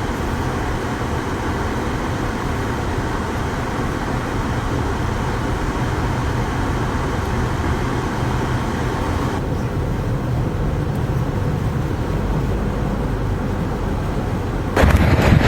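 Steady vehicle and road traffic noise, with a dull rumble underneath. The upper hiss drops off abruptly about nine seconds in. Near the end a louder rush of wind noise takes over.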